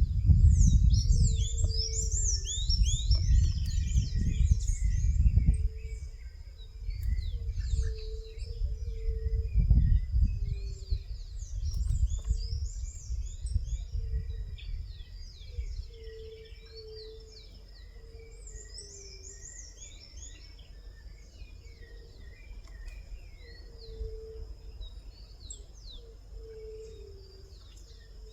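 Several small songbirds chirping and singing in quick, overlapping calls throughout, with a lower note repeated every second or so. A low rumbling noise is heavy in the first part and fades after about twelve seconds.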